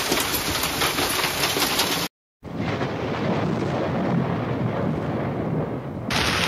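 Heavy hail pelting down, a dense clatter of countless hailstone impacts, breaking off about two seconds in. After a short gap comes a rain-and-thunder rumble, and about six seconds in the hail clatter starts again.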